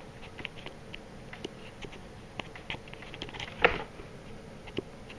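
Faint scattered small clicks and taps, with one sharper click about three and a half seconds in and another near the end.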